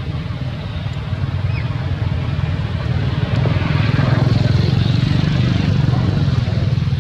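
Steady low rumble that grows louder about three seconds in and eases slightly near the end.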